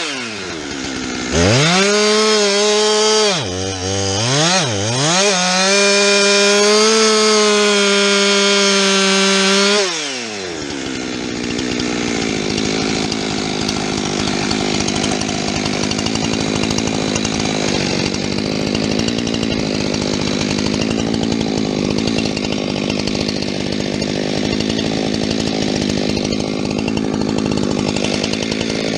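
Two-stroke chainsaw revved up and down at high throttle for about ten seconds, then its pitch drops as it bogs into the wood and it keeps cutting steadily. The uploader says the chain was not very sharp.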